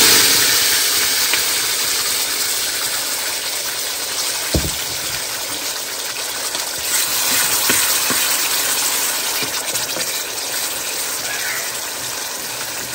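Loud sizzling of a wet ground paste of cashew, ginger and tomato hitting hot oil with fried whole spices in a kadai; it starts suddenly and slowly eases. A single dull knock comes about four and a half seconds in.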